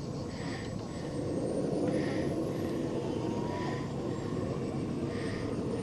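Model jet turbine (JetCat P-220RXi) of a scale Fiat G91 running on the runway: a steady rush with a thin high whine that climbs in pitch from about a second in as the turbine spools up.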